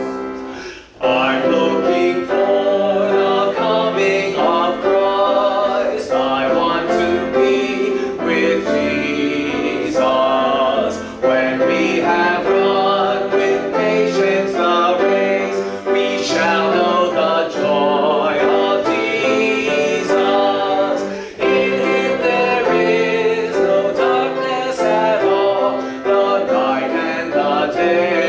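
A worship song sung at a microphone to grand piano accompaniment, in a steady flowing tempo, with a brief break between phrases about a second in.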